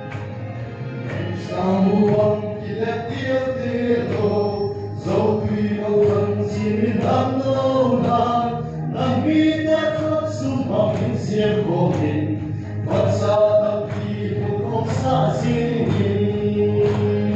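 A group of men and women singing a gospel-style song together through microphones and a PA system.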